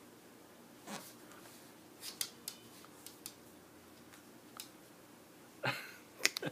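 Quiet handling noises from a small dog being held and petted in a costume: scattered soft clicks and short rustles, with a louder rustle and a few sharp clicks near the end.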